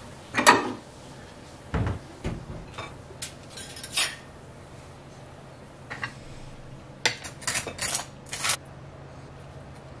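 Kitchen clatter: a cupboard door, ceramic plates knocking on a wooden counter, and a butter knife clinking and scraping as butter and jam are spread on bread. The knocks come one at a time, with a quick run of several clinks near the end.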